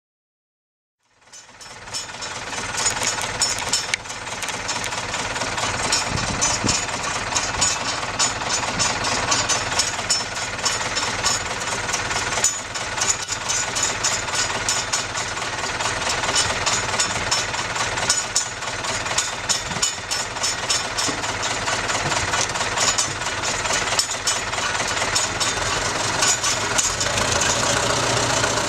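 A pet snoring close to the microphone: a loud, steady, rapid rattling pulse that starts about a second in and keeps going.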